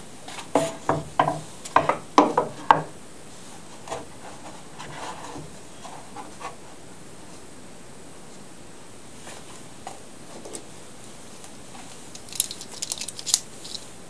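A wooden jig board knocking against a workbench, about eight sharp knocks in the first three seconds as it is set down and shifted into place, then faint handling noises. A quick run of light clicks comes near the end.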